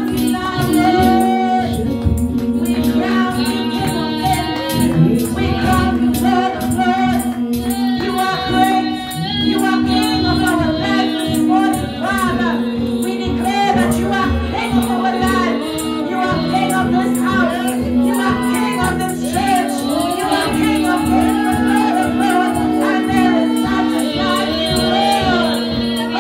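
Live worship singing: a woman sings the lead into a microphone with backing singers, over held instrumental chords that change every few seconds and a steady shaken-percussion beat such as a tambourine.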